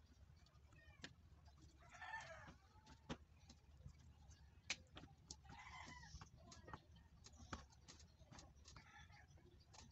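Soft clicks and knocks of raw fish slices being set down in an aluminium wok, with a few short animal calls in the background, one about two seconds in and one about six seconds in.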